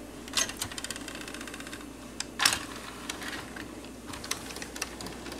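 Pioneer CT-M55R cassette changer's mechanism unloading a cassette from the playback deck and carrying it back to the loading area: a click, then a fast even run of ticking, a louder clunk about two and a half seconds in, and scattered clicks after.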